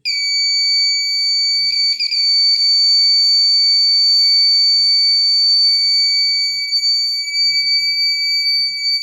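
Electronic buzzer switched on, sounding one continuous high-pitched tone. A few light knocks about two seconds in.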